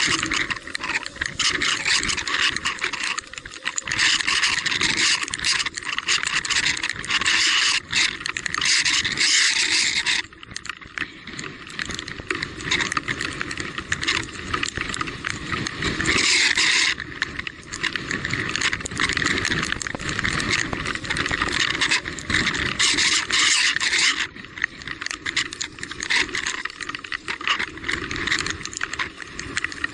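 Rough, continuous scraping and rattling of an electric mountain bike riding over a wet, rocky trail, surging and easing every few seconds.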